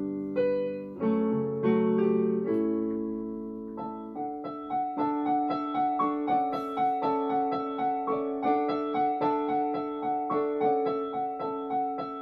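Piano introduction to a song: slow held chords, then from about four seconds in a steady pattern of repeated chords.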